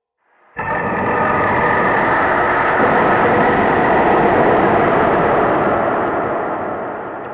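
A monster roar sound effect: one long, harsh roar that starts abruptly about half a second in, holds for several seconds and slowly fades near the end.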